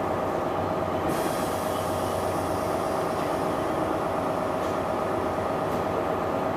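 First Great Western High Speed Train standing at the platform, its Class 43 diesel power car idling with a steady drone and a constant whine. A high hiss comes in about a second in.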